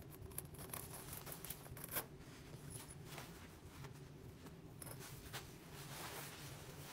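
Faint clicks and scrapes of small hand tools working at a puncture in a car tyre's rubber tread, with a sharper click about two seconds in. A low steady hum runs underneath.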